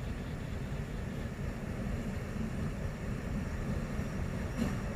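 Diesel locomotive running, a steady low rumble, with a faint click or two near the end.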